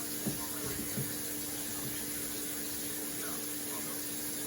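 Kitchen tap running into a sink, a steady rush of water, with two light knocks in the first second.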